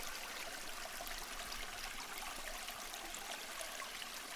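A steady hiss of rushing water with no break or change.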